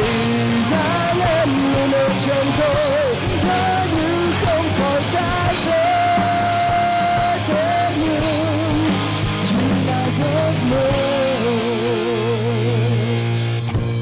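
Live rock band playing an instrumental passage: electric guitars, bass and drums, with a sustained lead guitar line that bends and wavers with vibrato.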